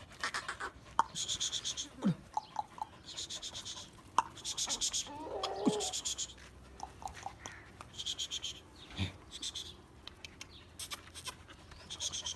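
Farmyard animal sounds: a high, buzzy pulsed trill that comes back every second or two, a short wavering call that falls away at the end about five seconds in, and a few sharp knocks.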